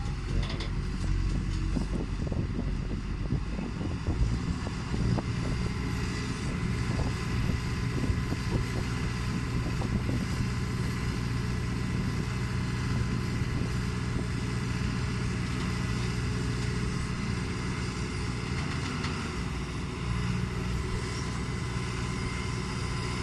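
Hitachi backhoe's diesel engine running steadily under load, with irregular knocks of the machine working in the first few seconds and a thin high whine joining about six seconds in.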